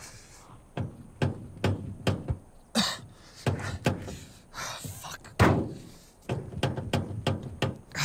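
Irregular thumps and knocks against a car's body as a man struggles with the front of the broken-down car, a dozen or so impacts with the loudest about five and a half seconds in.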